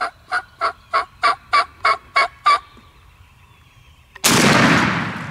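Wild turkey calling, a run of about nine evenly spaced notes at roughly three a second. Then, about four seconds in, a single loud shotgun shot that fades away.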